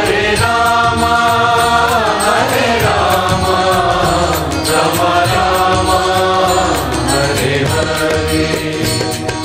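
Hindu devotional chant music (kirtan): a voice holding long sung notes over accompaniment.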